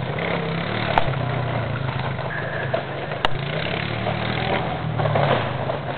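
A small motor running steadily with a low, slightly wavering hum, with a couple of sharp clicks over it.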